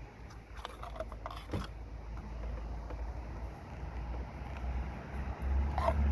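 Volkswagen Golf 1.6 FSI engine running with a steady low hum, with a few light knocks in the first second and a half. It grows louder about five and a half seconds in.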